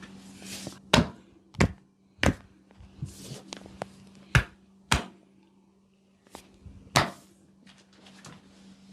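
A barber's hands slapping and popping during a head massage: about six sharp, loud strikes at uneven intervals, with softer rubbing between them.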